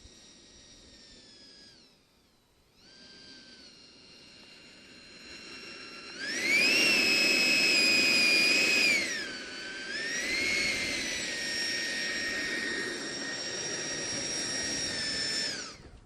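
145 mm electric ducted fan of a large RC jet whining, faint at first. About six seconds in it spools up sharply and runs loud, eases back about three seconds later, holds a steadier whine, then winds down and stops near the end.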